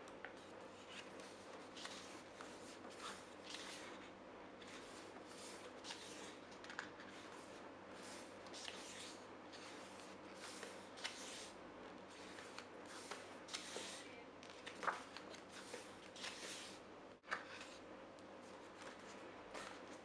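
Pages of a photobook being turned by hand: a run of soft paper swishes and rustles, one after another, with a few light taps as the pages are smoothed down.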